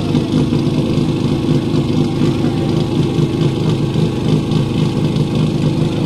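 Portable fire pump's engine idling steadily, holding an even pitch.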